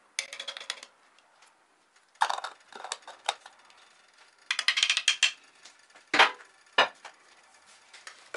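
Plastic measuring spoon scraping mustard out of a glass jar in short scratchy bouts, then two sharp knocks as the spoon is tapped against the rim of an enamelled pot.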